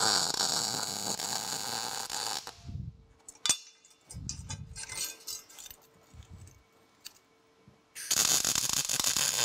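Wire-feed welder arc crackling as a weld is laid on a small upright bracket, for about two and a half seconds. After a pause with a few knocks and a sharp click, a second weld starts near the end.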